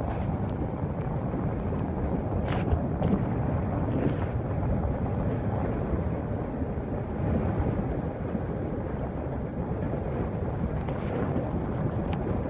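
Steady low rumble of jet aircraft noise, with a few faint clicks scattered through it.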